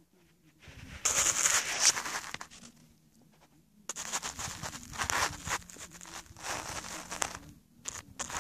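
Crisp crunching and scraping of snow close to the microphone: a loud crackly burst about a second in, then a longer run of scratchy crackling after a pause, starting again near the end.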